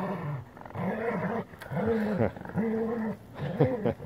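Airedale terriers growling at each other while play-fighting over a stick: a run of about five short growls, each rising and falling in pitch.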